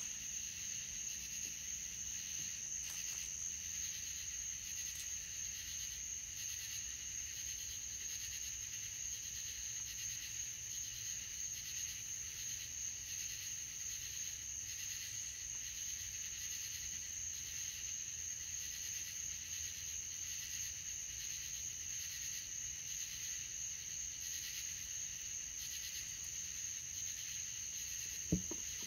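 A steady, high-pitched chorus of night insects such as crickets, trilling without a break. A brief low thump comes near the end.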